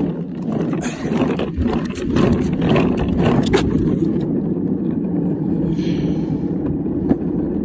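A child's ride-on toy police car rolling along rough concrete pavement. Its wheels make a steady rumble, with scattered clicks and knocks in the first half.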